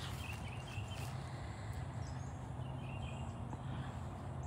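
Outdoor ambience: a low steady rumble, with faint bird chirps a few times.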